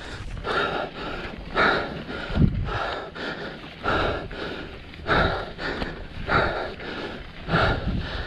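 A mountain biker breathing hard and rhythmically close to the microphone under race effort, a loud breath about once a second.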